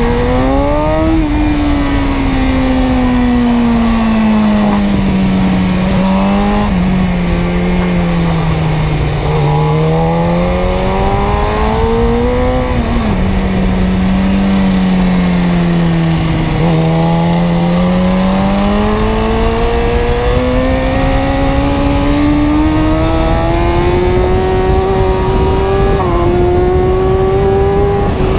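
A vehicle engine running under load, its pitch falling as it slows and then climbing as it speeds up again, with sudden small steps in pitch where it shifts gear.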